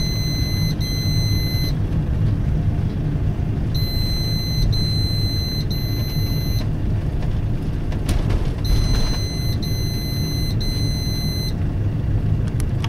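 Low, steady engine and road rumble inside a slowly driven car. Over it, a high electronic warning beep sounds in sets of three, one set about every five seconds.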